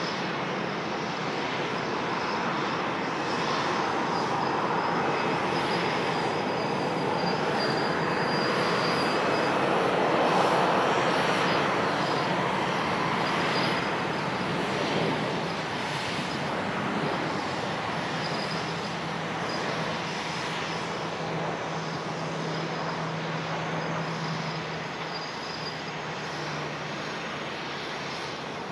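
Airbus A320-200 airliner's jet engines during touchdown and landing roll: a steady rushing noise that swells to its loudest about ten seconds in, then eases off slowly as the jet slows on the runway.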